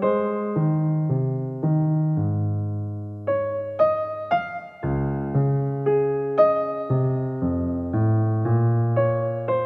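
Background music: a slow piano melody, notes struck about twice a second and left to ring and fade.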